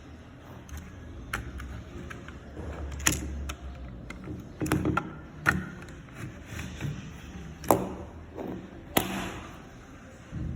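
Rossi C11 CO2 BB pistol firing several shots at irregular intervals, each a short sharp crack, with smaller clicks and knocks between them.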